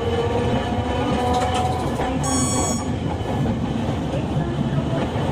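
Hiroshima Electric Railway 1900-series streetcar running along the line: a steady rumble of wheels on rail and traction equipment. About two seconds in there is a brief high ringing tone.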